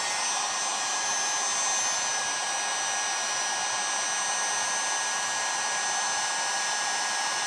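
Heat gun running steadily, an even blowing hiss with a thin high whine. It is heating the magnesium crankcase around the bearing bore so the tight crankshaft bearing can be pressed in.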